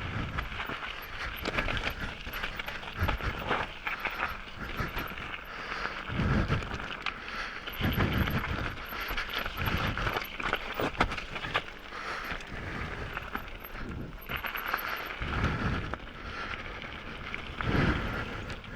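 Mountain bike rattling and clattering over a rough, rocky trail on a descent. Heavy breaths puff straight into a microphone set right in front of the rider's mouth, about every couple of seconds.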